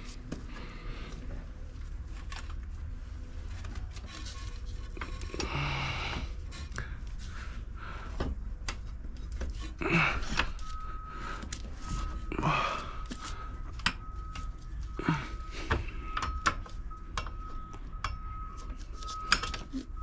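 Metal tools and motorcycle wheel parts clinking and knocking in irregular short strokes as a rear wheel is levered up into place with a pry bar, over a steady low hum. A thin, steady high tone comes in and out from about halfway.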